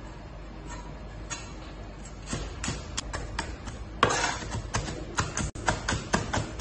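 Chinese cleaver chopping green chilies on a thick wooden chopping block: sharp knocks of the blade on the wood, sparse at first, then a quick irregular run of chops from about two seconds in as the chilies are minced, with a louder, noisier knock about four seconds in.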